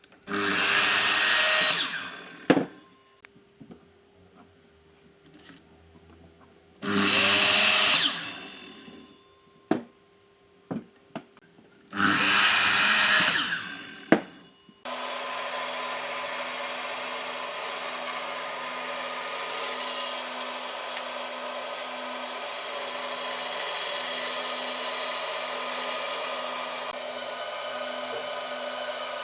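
Handheld power tool working wood in three short bursts of about two seconds, each winding down after the trigger is let go and followed by a sharp knock. About fifteen seconds in, a power tool starts running steadily and keeps going with a constant hum.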